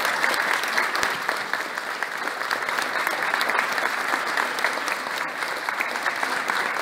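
An audience of schoolchildren applauding steadily: many hands clapping at once.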